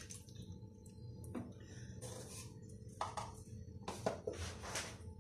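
Faint handling of a steel spoon and stainless steel bowl of raw chicken: a light click about a second in, then a few short, soft scrapes, over a low steady hum.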